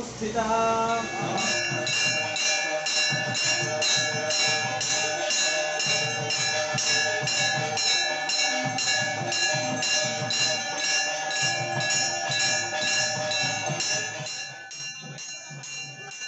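Brass temple bell rung rapidly and continuously for the aarti, about three strokes a second, its ringing tones overlapping into one sustained clang. Near the end it drops to a quieter, faster ringing.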